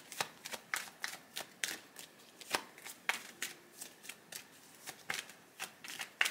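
A deck of tarot cards being shuffled by hand: a quick, irregular run of short card snaps and flicks, about three or four a second.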